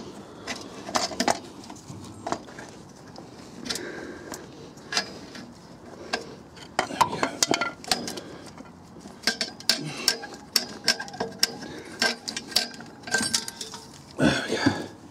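Irregular metallic clinks and knocks from a clutch pressure plate and disc being worked by hand off the flywheel's locating dowels, with the clicks coming thicker in the second half.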